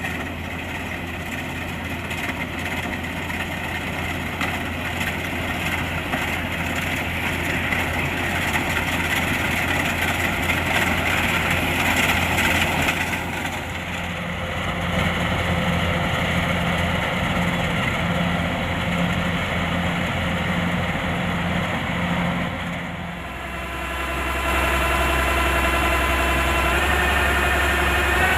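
Kubota rice combine harvester's engine and machinery running steadily. About two thirds of the way in the sound dips briefly and changes, then a steady whine comes in that steps up in pitch near the end.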